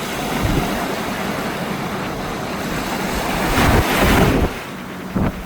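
Ocean surf rushing onto the beach, swelling to a louder wave crash about three and a half seconds in that then falls away. Wind buffets the microphone in short low rumbles.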